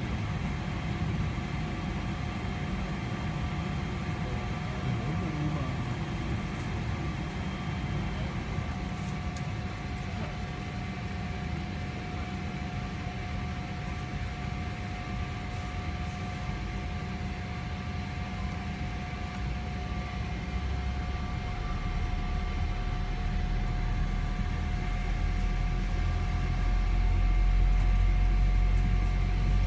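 Boeing 777-300ER cabin noise during pushback: a steady hum of air and machinery with a few steady whining tones, and a low rumble that grows louder over the last third.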